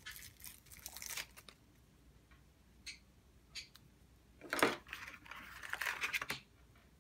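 Packaging being handled and opened: paper and plastic wrapping crinkling and tearing, with a few light clicks of small plastic parts. The loudest rustle comes about four and a half seconds in, followed by a spell of crinkling.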